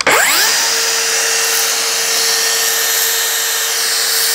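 Cordless circular saw starting up with a quickly rising whine, then running at a steady pitch with a strong hiss as it cuts a taper along a wooden board.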